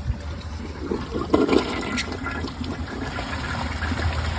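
Mansfield Summit dual flush toilet flushing, starting about a second in with a rush of water and gurgling, while a plastic grocery bag is lodged in the trapway.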